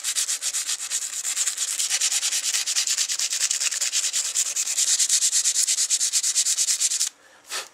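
The glass playing surface of a turkey pot call being scratched rough with rapid, even back-and-forth strokes, conditioning it so a striker will grip and make it call. The scraping stops abruptly about seven seconds in, with one short stroke after.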